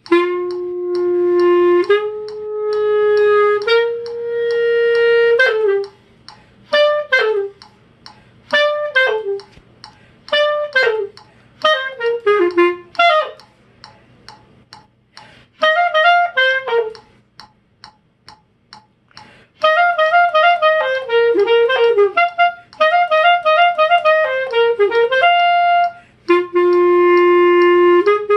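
A solo woodwind, likely a clarinet, playing by ear. It holds long notes that step upward, then plays a series of short notes that each slide downward, then fast runs of quick notes, and ends on long held notes again.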